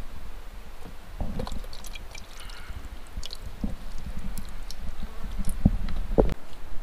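Thick meat stew being pushed with a fork out of a plastic container into a metal billy pot: wet plops as lumps drop in, with small scrapes and clicks of the fork. Several soft thumps, the loudest near the end.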